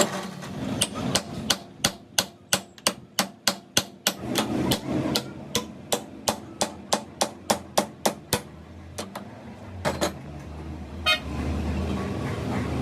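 Hammer blows on metal, struck at an even pace of about three a second for roughly seven seconds. A few scattered knocks follow, then a low steady hum near the end.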